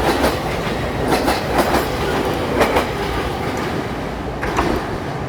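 E657-series limited express train running past over the rails: a steady rumble with groups of sharp wheel knocks over the rail joints every second or so, the knocks thinning out near the end.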